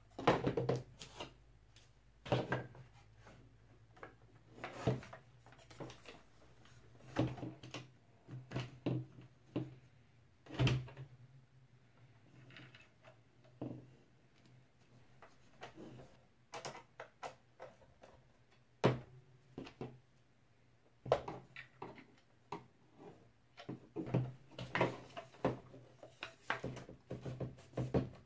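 Irregular knocks and clicks of a serving tray being assembled by hand on a tabletop: the printed panel is slid into its frame and the side pieces are fitted on.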